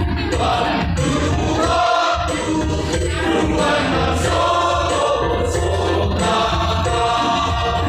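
A choir singing a sustained hymn-like song, several voices together, with no break.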